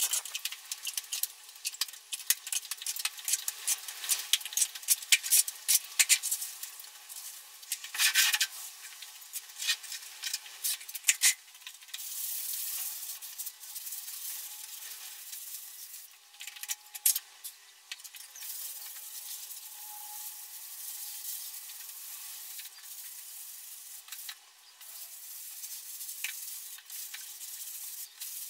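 Polystyrene float rubbed over a fresh lime plaster wall: a scratchy, gritty scraping, as small stones left in the lime scratch the surface. Through the first twelve seconds or so it crackles with many small sharp clicks; after that it settles into a steadier rubbing broken by short pauses between strokes.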